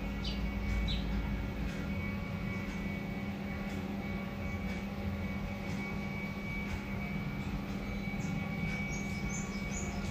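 Steady low mechanical hum with a few faint, even tones above it, and a few short high chirps in the first second.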